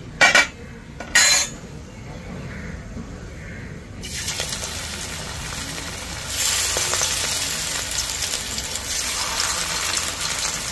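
Two sharp metal clinks near the start, then, about four seconds in, hot vegetable oil in a kadai begins to sizzle as a batter-coated ash gourd leaf fritter is laid in. The sizzle grows louder about two seconds later as a second fritter goes in, and keeps on steadily.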